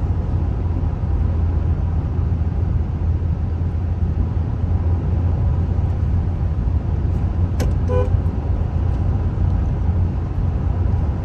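Steady low road and engine rumble from inside a moving car, with a brief sharp sound and short tones about two-thirds of the way through.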